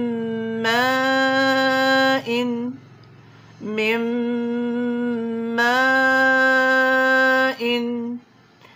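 A woman reciting a Quranic verse in a slow tajweed chant, drawing out long vowels as steady held notes. There are two long phrases, each rising a step in pitch partway through and ending with a short clipped note.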